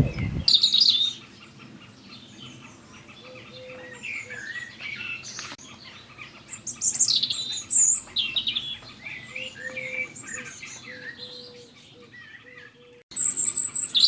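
Songbirds chirping and trilling, a mix of quick high calls and repeated short lower notes, with a single click about five seconds in. A louder, steady high-pitched sound cuts in abruptly near the end.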